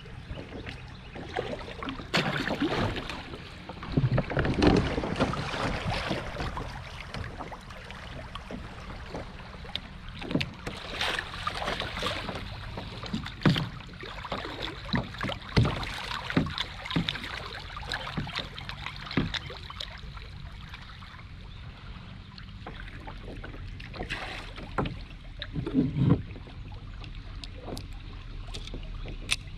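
Kayak paddle strokes in a shallow river riffle: water splashing and rushing along the hull, with scattered sharp knocks.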